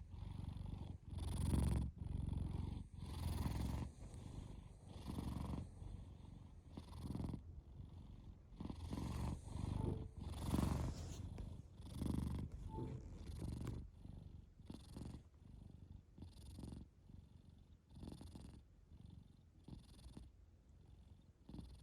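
A sleeping cat snoring at close range: a rasping snore on each breath, about one every one and a half to two seconds, growing fainter in the last third.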